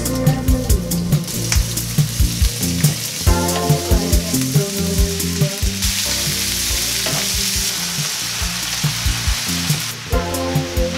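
Vegetables sizzling in oil in a frying pan while they are stirred with a wooden spatula; the sizzle grows loudest from about six seconds in, as spinach goes in with the mushrooms and peppers. Background music plays underneath.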